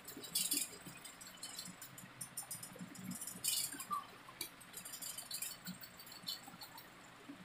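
Pen drawing lines on paper on a clipboard: faint scratchy strokes, two longer ones about half a second in and about three and a half seconds in, with small ticks of the pen and paper between.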